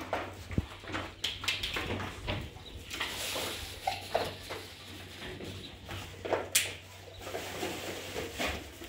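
Plastic bag rustling and small plastic pipe fittings clicking as they are handled and set down on a tiled floor, with one sharp click about six and a half seconds in.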